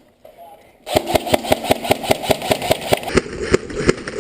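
Airsoft gun fire: a rapid string of sharp shots about six to seven a second, starting about a second in and going on less regularly after about three seconds.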